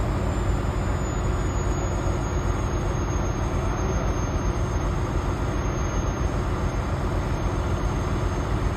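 Heavy wrecker's diesel engine running steadily, a constant low rumble, as it works its boom and winch lines to pull an overturned semi-truck upright.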